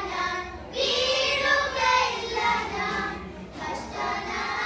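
A group of children singing together, with a short break between phrases about three seconds in.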